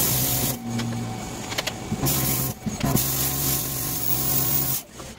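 Plasma cutter cutting a metal sheet along a straightedge: a loud, even hiss over a steady low hum, broken by short pauses about every second or so.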